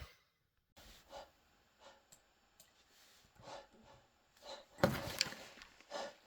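A person with a cold taking a series of short, gasping in-breaths that build up to a loud sneeze about five seconds in, then another short burst near the end.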